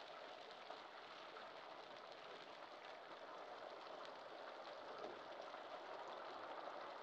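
Thin tomato-chili sauce bubbling and sizzling steadily in a nonstick wok on high heat, at a boil.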